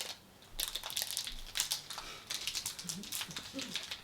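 Chocolate bar wrapper crinkling in a quick run of crackles as the bar is handled and unwrapped.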